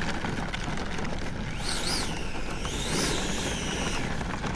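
90 mm electric ducted fan of an RC jet whining up and falling away twice in short throttle bursts on the ground, over a steady rush of wind noise.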